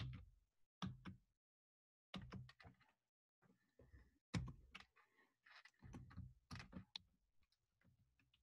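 Faint keystrokes on a computer keyboard: irregular taps in small clusters, with short pauses between them.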